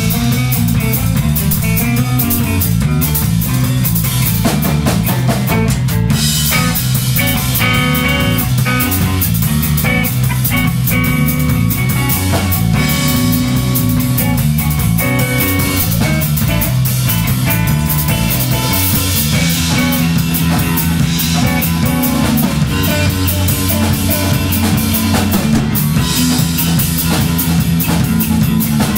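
Live instrumental rock jam: a drum kit played steadily with guitar over it. The playing grows fuller about six seconds in.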